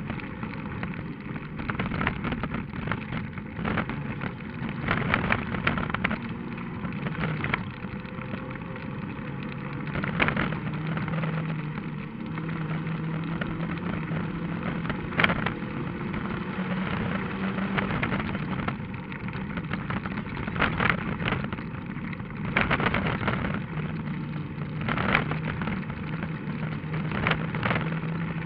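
Rally car engine running hard on a gravel stage, its note held steady for stretches, with stones and bumps knocking sharply against the car again and again.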